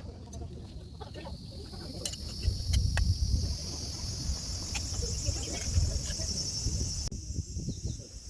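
Insects chirring in a high, fast-pulsing band that slowly rises in pitch, breaking off sharply about seven seconds in. A low rumble and a few light clicks sit underneath.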